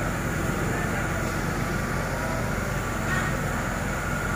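Diesel-hydraulic locomotive engine running steadily, a low even rumble.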